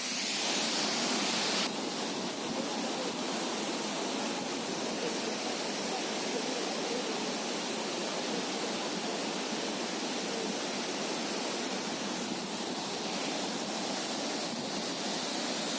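Steady rushing roar of Chhangey Falls, a tall waterfall plunging into a pool. The hiss is brighter for the first couple of seconds, then settles to an even rush.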